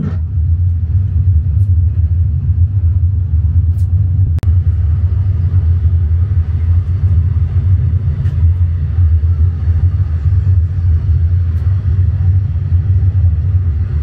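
A loud, deep, steady bass rumble from an ambient soundtrack played through a themed viewing platform's speakers. The bass is strong enough to make the floor vibrate. Two faint clicks come about four seconds in.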